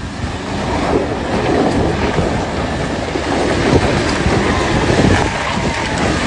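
Toyota Hilux pickup's engine pulling under load, with tyres churning through water and gravel as it tows a stuck car out of a river: a loud, rough rumbling that swells about a second in.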